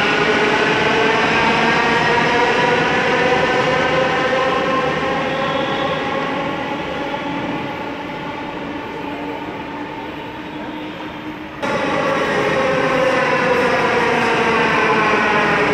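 Delhi Metro electric trains running alongside the platform, their motors giving a whine of several tones over rumbling wheel noise. The whine fades as the first train pulls away. About twelve seconds in it cuts back in suddenly and loudly as another train passes close, and its pitch falls as it runs in.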